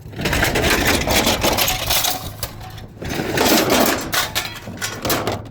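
Loose scrap metal clattering and rattling as it is dumped out during unloading, in two long rushes followed by lighter clinks.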